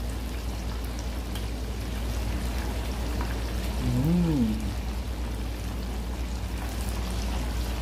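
Breaded chicken pieces deep-frying in hot oil in a stainless steel pot, a steady crackling sizzle, with now and then the scrape of tongs and a spatula turning the pieces.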